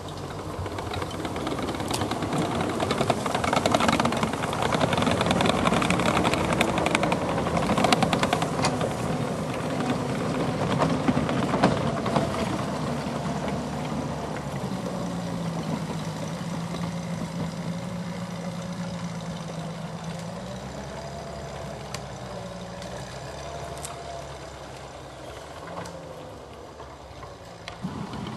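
Studebaker M29 Weasel tracked vehicle's six-cylinder flathead engine running, pulling louder over the first dozen seconds with sharp clicks among it, then settling to a steadier, lower note and fading toward the end.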